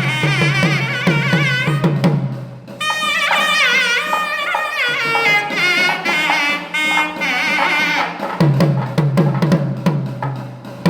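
Instrumental music with a steady drum beat that drops out for several seconds in the middle, while a high melody with wavering, ornamented notes carries on; the drums return near the end.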